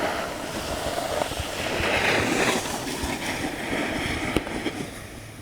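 Snowboard sliding slowly over icy snow: a steady scraping hiss that swells about two seconds in and fades toward the end.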